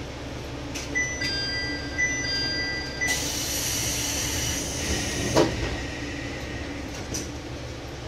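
Diesel railcar idling at a station stop: a chime of short, steady high tones plays for about two seconds, then a loud burst of compressed-air hiss as the doors close, ending in a thud about five seconds in.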